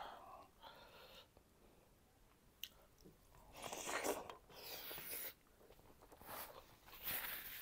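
Close-miked chewing and mouth sounds of a person eating rice and fish curry by hand. The sounds come in irregular bursts about halfway through and again near the end, with quieter stretches between.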